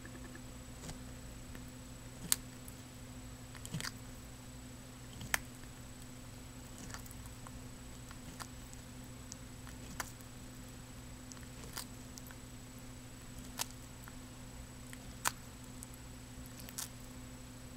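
Ornate box turtle biting and crunching a cockroach in its beak: about eight short, sharp crunches spaced a second or two apart, over a steady hum.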